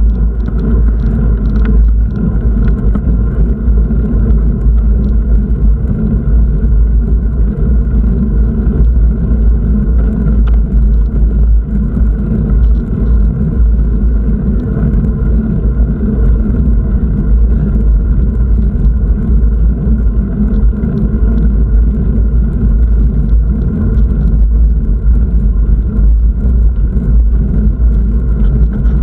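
Loud, steady rumble of wind buffeting a moving camera's microphone, mixed with road noise, its loudness fluttering rapidly.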